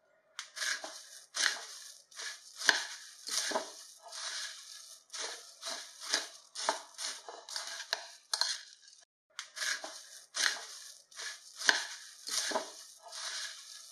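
Puffed rice and chopped vegetables being stirred and tossed with a silicone spatula in a glass bowl: repeated rustling strokes, about one to two a second, with a few sharp taps and a brief pause about nine seconds in.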